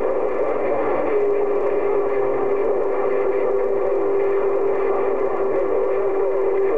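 CB radio receiver on 27.025 MHz playing hiss and static with a steady whistle in it, which drops a little in pitch about a second in.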